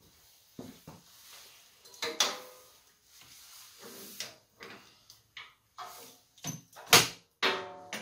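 Metal clinks and clanks of a winch hook being handled against the steel hooks of an ATV plow blade's frame, some ringing briefly. The loudest clank comes about seven seconds in, followed by a short ringing clatter.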